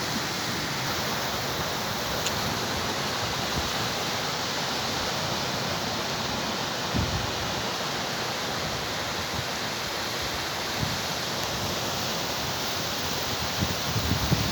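Steady wash of sea surf breaking along the beach, an even roar with no single wave standing out.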